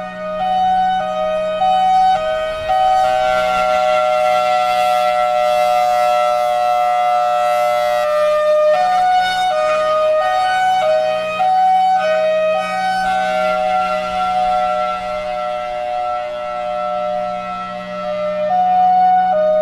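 Federal Signal Thunderbolt 1003 outdoor warning siren sounding its hi-lo signal, two pitches switching back and forth at uneven, lurching intervals, some held for several seconds and some only a second. This irregular "drunk" hi-lo is the quirk this siren is known for. A steady low hum runs beneath the tones.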